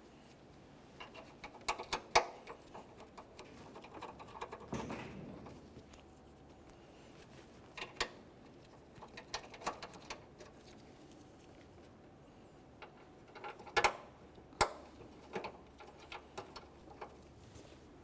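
Scattered sharp clicks and light rustling of small metal parts being handled: a hood latch and its mounting bolts being fitted and threaded in by hand.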